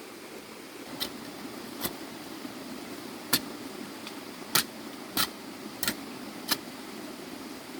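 A series of seven sharp clicks or knocks at irregular intervals over a steady background hum.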